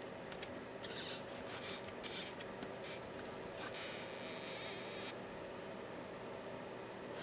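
Hands working on laptop parts during disassembly: a run of short scratchy rubs and scrapes, then a steadier hiss of about a second and a half around the middle, like something sliding or peeling.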